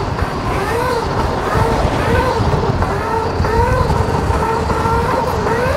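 Solar Eclipse 2.0 electric dirt bike's motor whining as it rides, the whine rising and falling in pitch with the throttle, over heavy wind rumble on the microphone.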